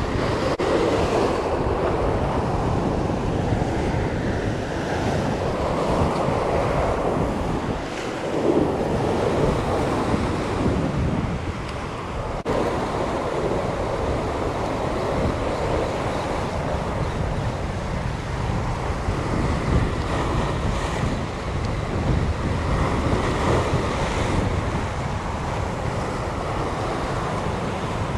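Sea waves washing against a rocky shore, with wind buffeting the microphone. The wash swells and ebbs every few seconds.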